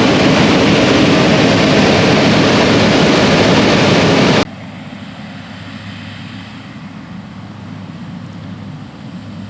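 New Holland CR8090 combine running under load while harvesting corn, a loud, dense mechanical noise. About four and a half seconds in it cuts off suddenly to a much quieter, lower machine hum.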